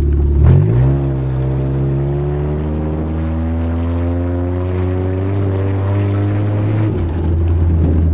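Automatic Honda's engine under way: its pitch jumps up about half a second in, climbs smoothly and steadily as it accelerates, then drops back about a second before the end.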